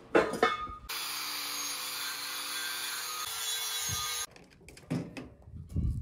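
A few metal clanks of steel being handled, then about three and a half seconds of steady hissing from a metalworking tool working steel, starting and stopping abruptly.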